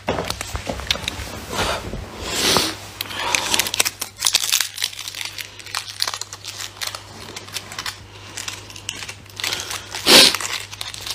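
Close rustling and crinkling at a phone's microphone, made up of many small clicks, with a few louder whooshes. The loudest whoosh comes near the end. A steady low hum runs underneath.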